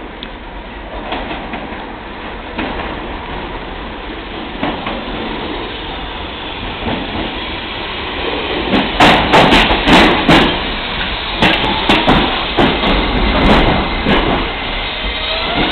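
Eight-car R68A subway train pulling into the station, getting louder as it comes in, its wheels clattering loudly over the rail joints from about eight seconds in. Near the end a rising whine begins.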